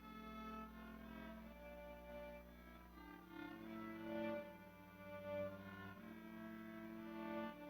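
Slow instrumental music on bowed strings, violin and cello, playing long held notes.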